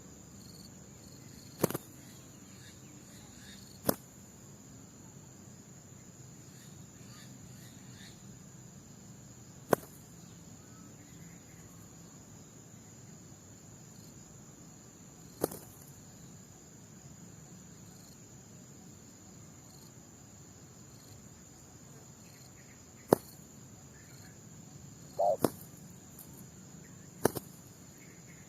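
A steady high-pitched insect trill, like crickets, runs under seven scattered sharp clicks. Near the end comes a short low coo note from a spotted dove.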